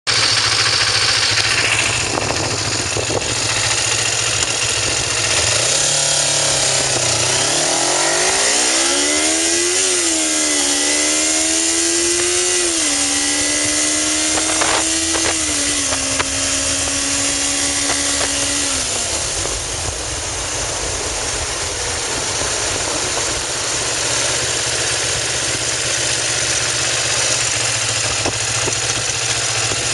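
Kawasaki Ninja motorcycle engine idling, then pulling away under gentle throttle. Its pitch climbs and drops back at three upshifts before it settles into a steady low hum, with a steady rushing noise over it all.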